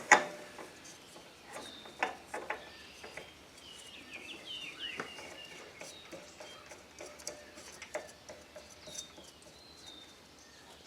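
Small birds chirping in short, high calls with falling pitch, mostly in a cluster partway through and once more near the end, over a few light clicks and knocks of handling.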